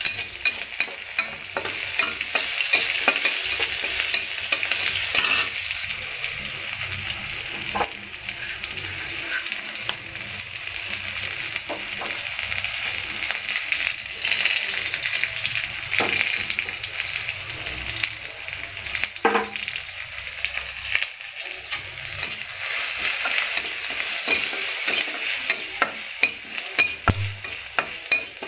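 Small onions and mustard seeds sizzling in hot oil in a steel kadai, with a metal spatula scraping and clinking against the pan as they are stirred. The clinks come thick at the start and again near the end, sparser in between.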